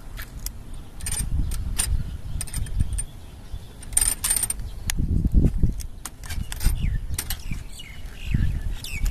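An ice-cream scoop clinking and scraping against the metal canisters of a street vendor's cart as ice cream is scooped into plastic cups, with scattered light clicks and clinks from handling the lids and cups, over a low, uneven rumble.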